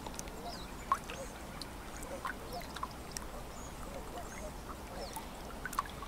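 Birds calling over a lake: many short scattered calls and high chirps over a steady low background, with two sharper calls standing out, about a second in and near the end.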